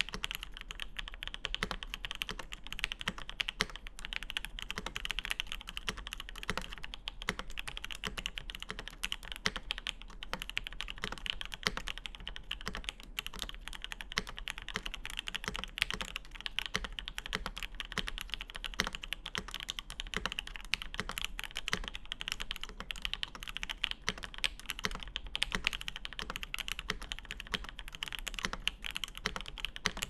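Continuous fast typing on a clear polycarbonate Obliterated75 mechanical keyboard with an FR4 plate, lubed Alpaca linear switches with TX films and JTK Vostok-1 keycaps: a dense, steady stream of keystroke clacks.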